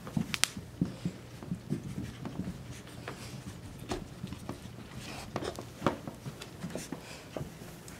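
An American Bully and small Maltese/Shih-tzu puppies in rough-and-tumble play: scattered, irregular scuffles and light taps, with no barking.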